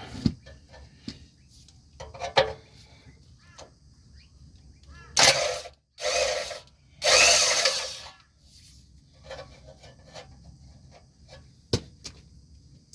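Mechanic's tools working the bolts of a transmission cross-member bracket: scattered metal clicks and knocks, with three short, loud bursts of tool noise about five to eight seconds in.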